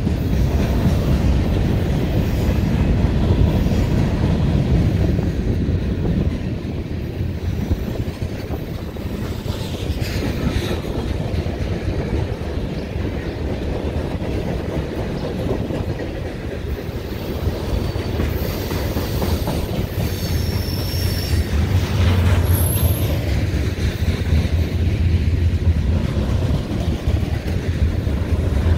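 Freight cars of a CSX manifest train rolling past: a steady, loud rumble and clatter of steel wheels on rail. A few brief high wheel squeals come about two-thirds of the way through.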